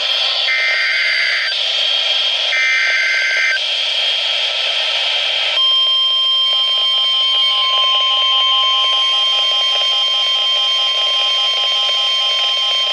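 NOAA Weather Radio Emergency Alert System alert heard through a weather radio receiver over steady static. It opens with two harsh, warbling digital header bursts about a second long each and two seconds apart, the end of the SAME data header. About five and a half seconds in, the steady single-pitch 1050 Hz attention tone starts and holds, announcing a new warning.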